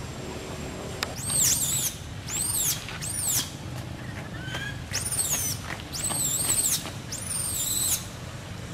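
Baby macaque screaming: about six shrill, high-pitched screams in quick succession, each one arching up and then down in pitch, starting about a second in.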